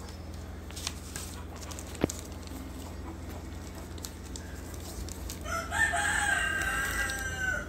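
A rooster crowing once, a drawn-out call of about two seconds near the end. Before it, a few light clicks of small metal tools being handled, one sharper click about two seconds in.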